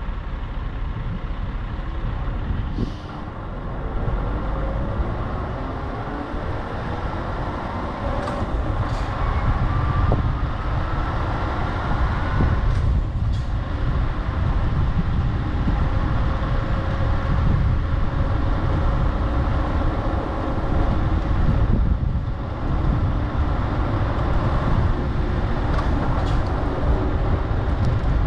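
Scania R580's V8 diesel engine running at low speed, its pitch slowly rising and falling as the truck and trailer manoeuvre to turn around, with a few brief sharp hisses scattered through.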